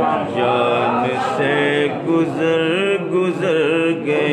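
A man's voice singing a naat in a drawn-out, chant-like style, holding and ornamenting long notes with a wavering pitch between the words of the line.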